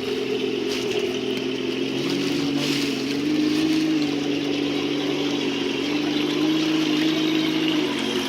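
Electric motor and gearbox of an RC crawler whining steadily, the pitch stepping up and down slightly with the throttle.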